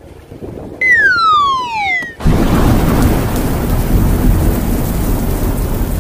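Intro sound effects: a whistle falling in pitch for about a second, then a sudden loud thunder crash that rumbles on.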